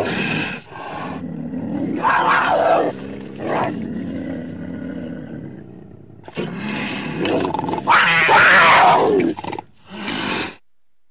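Cougar (mountain lion) calling: a string of about six harsh, rough calls of differing length, the longest and loudest starting about eight seconds in. The sound cuts off abruptly near the end.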